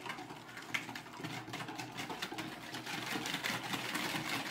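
Hand whisking with a wire balloon whisk in a plastic bowl: quick rhythmic clicking and tapping of the wires against the bowl as eggs, sugar and melted margarine are beaten into brownie batter. The strokes get faster and a little louder about three seconds in.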